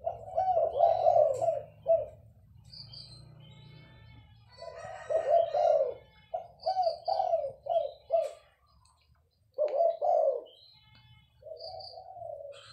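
Caged spotted dove (tekukur) cooing in several groups of low, full coos separated by pauses. Faint high chirps of small birds sound in the background.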